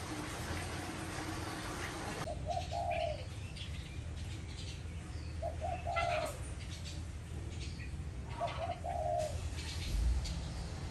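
A dove cooing three times, each a short two-part coo about three seconds apart, with small birds chirping faintly. A steady hiss stops abruptly about two seconds in.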